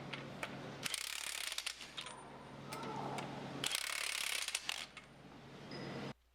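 Wrench snug-tightening structural twist-off bolts: two bursts of rapid clicking, each about a second long, around one and four seconds in, over a steady low hum. The sound cuts off sharply near the end.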